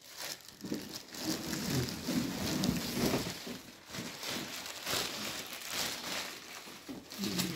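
Clear plastic wrapping rustling and crinkling as it is handled and pulled, with a cardboard box being shifted.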